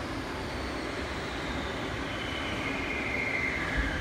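Steady mechanical running of a CNC pipe cutting machine's drive, a low rumble with a thin motor whine that slides down in pitch and grows a little louder near the end.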